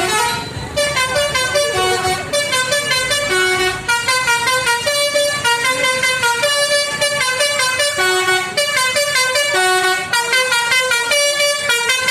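Indonesian tour bus's 'telolet' musical air horn playing a fast tune of short stepped notes, repeating with brief breaks.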